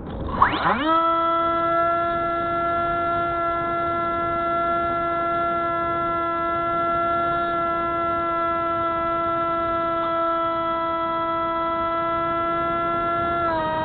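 Spyhawk FPV model plane's electric motor and propeller. The pitch sweeps up and back down sharply about half a second in, then the motor holds a steady whine at constant throttle, dipping slightly in pitch near the end.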